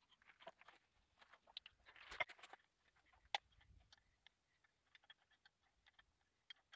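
Faint clicks and light handling noises of hand work on a diesel fuel injection pump: plastic protective plugs being pushed onto its outlets and a spanner on its mounting bolts. There is a busier patch of rattling about two seconds in and one sharp click a little after three seconds.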